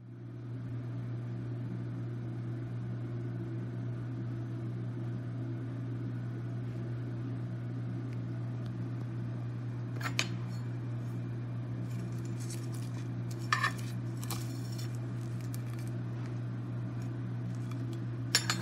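A steady low hum, with a few sharp clinks of utensils against a dish: one about ten seconds in, two a few seconds later, and one near the end.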